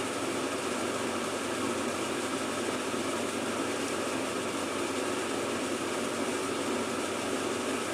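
Overhead exhaust fan running with a steady, even rushing noise.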